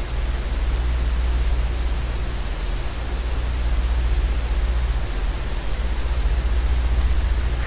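Steady low hum under an even hiss: the recording's microphone noise floor, with no other sound.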